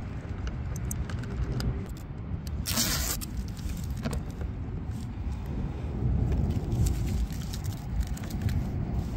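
Masking tape being ripped off an RC boat's hatch, one loud tearing rip about three seconds in, with small clicks and handling of the hatch. Low wind rumble on the microphone throughout.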